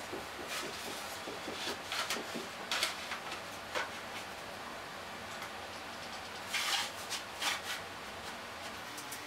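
A plywood crosscut sled being set down and slid by hand on the table saw top: several short scraping, rustling sounds of wood moving on the table, the longest a cluster about two-thirds of the way through, over a steady low hiss.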